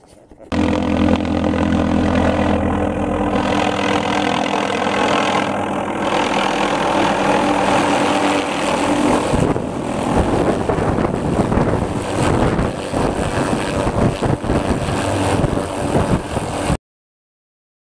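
MD 500 helicopter's turbine engine and five-bladed rotor running close by as it comes in low and settles onto the ground. The sound is steady at first, then turns choppier with pulsing rotor thumps, and cuts off suddenly near the end.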